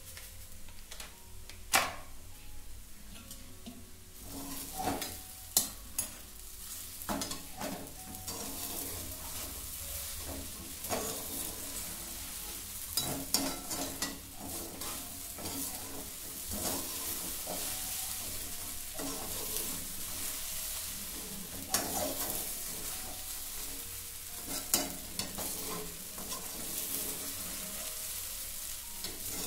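Flat metal spatula stirring and scraping sabudana (soaked tapioca pearls) in a metal kadhai over a gas flame, with a steady light sizzle of frying. The spatula knocks sharply against the pan now and then.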